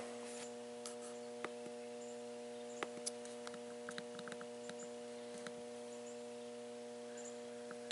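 Transformer battery charger on its 50-amp setting humming steadily while charging a jump-starter pack, with a few faint scattered clicks and ticks.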